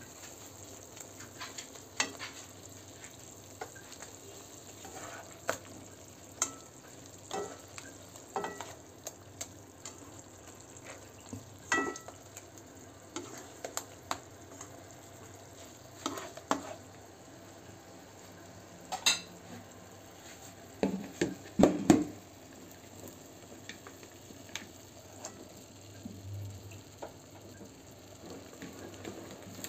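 Spatula scraping and knocking against a granite-coated wok while stirring fried tofu in sauce, over a faint steady sizzle of frying. The knocks come irregularly and are loudest in a quick cluster about three quarters of the way through.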